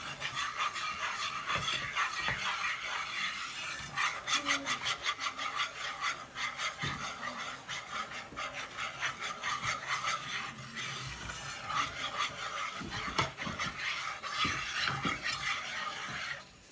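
Wire whisk scraping rapidly and steadily around the bottom of a metal saucepan, stirring a thick flour roux sauce as it turns creamy.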